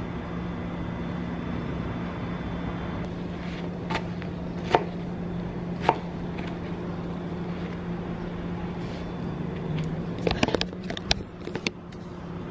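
A kitchen knife tapping against the countertop three times while strawberries are hulled and cut, then a quick flurry of knocks and clicks near the end, over a steady low hum.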